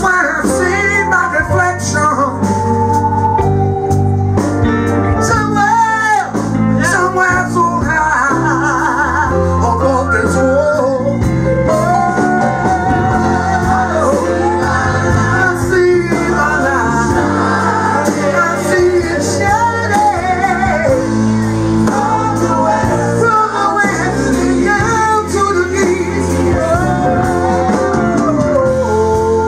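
Live band playing a song, with singing over electric guitar and the rest of the band.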